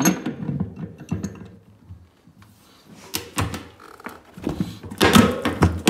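Adjustable wrench knocking and clinking against the metal shaft support on the back of a washing-machine drum as it is levered to bend the support straight. A few scattered knocks, a short quiet moment about two seconds in, then a busier run of metal clinks near the end.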